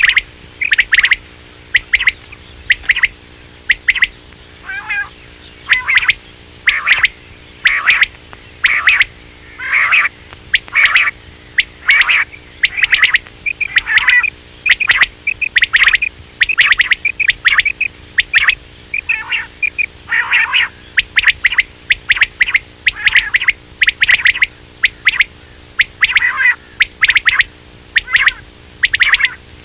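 Quail calling over and over: short, sharp call notes in quick clusters of two or three, roughly one or two clusters a second, used as a lure call to draw quail in.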